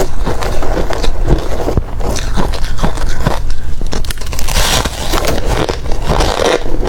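Close-up crunching and cracking of hard ice being bitten and chewed, a rapid run of sharp cracks with louder crunching bursts near the middle and toward the end.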